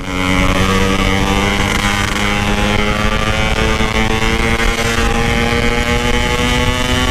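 Yamaha RX-King two-stroke single-cylinder motorcycle engine held at high revs under full throttle, a steady buzzing note that climbs slightly in pitch, with wind on the microphone.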